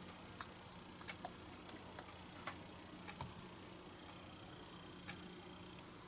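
Faint room tone with a steady low hum, broken by light, unevenly spaced clicks and taps, about ten in all, from hands handling things on the table while nobody speaks.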